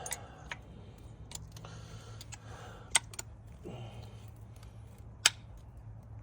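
Sharp metallic clicks and taps from hand work on a brake caliper and its pads, about six at irregular intervals, the loudest just past five seconds in, over a low steady hum.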